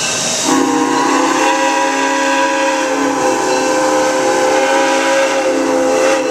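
Steam locomotive Granite Rock Co. No. 10's chime whistle blowing one long steady blast, several tones sounding together, starting about half a second in, over a hiss of steam.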